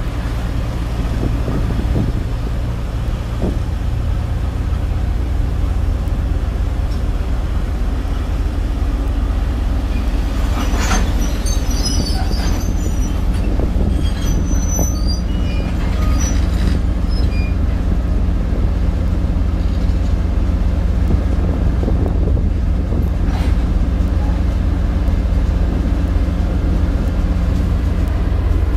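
VL11 electric locomotive moving slowly on the rails with a steady low rumble, and high-pitched wheel squeal from about ten to seventeen seconds in.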